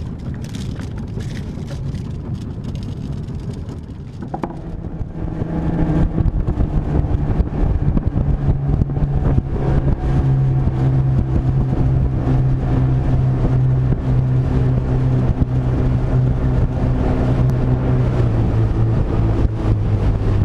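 A motorboat's engine running under way. About five seconds in it grows louder and settles into a steady hum that holds to the end.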